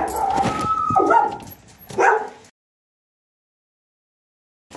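Pet dog barking and vocalising in one edited-in stretch of about two and a half seconds, loudest about a second in and again near two seconds. It then cuts off abruptly to dead silence, and the barking starts again right at the end.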